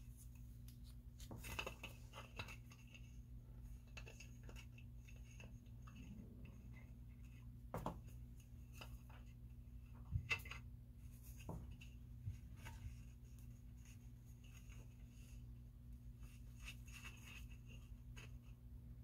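Faint handling sounds of plastic model parts: scattered light clicks and scrapes as a thin plastic rod is worked through a hole in a curved plastic piece, with sharper ticks about 8 and 10 seconds in, over a steady low hum.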